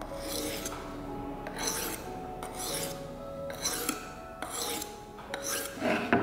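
A D2 steel knife blade rasping across a coarse, low-grit perforated diamond sharpening plate: about six separate strokes, roughly one a second, while the edge is set.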